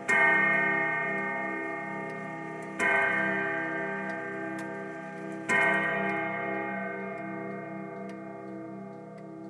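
Urgos grandfather clock striking the hour of six on its chime rods: three hour strokes, about 2.7 seconds apart, each ringing out and slowly fading.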